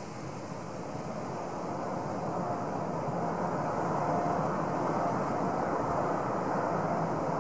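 Boeing 787 jet engines running at taxi power as the airliner lines up on the runway: a steady rumble with a faint whine, growing gradually louder as it comes closer.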